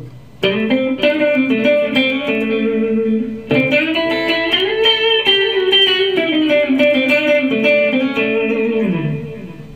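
Clean-tone electric guitar playing blues licks through Line 6 POD Farm amp-modelling software, with small-room reverb and a digital delay adding echoes. Two phrases with bent notes, the second starting about three and a half seconds in; the last note slides down and dies away near the end.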